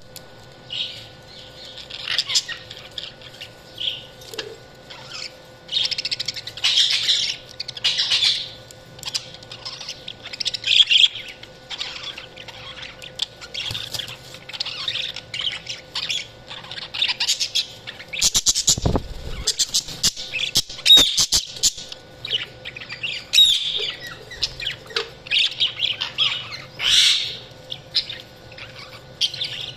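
Budgerigars chirping and chattering almost without pause, in short, quick, high chirps and squawks. About two-thirds of the way through there is a short run of sharp clicks and a rattle.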